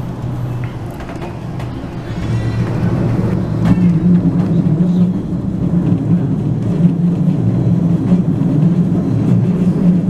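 Passenger train running along the line, heard from inside the carriage: a steady low hum over the rumble of wheels on the track, growing louder about four seconds in.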